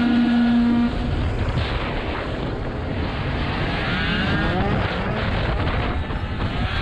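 Tuned two-stroke racing scooter engine at full race speed, its high steady note breaking off about a second in, then running rough and mixed with wind noise before the revs climb again near the end as it drives out of the corner.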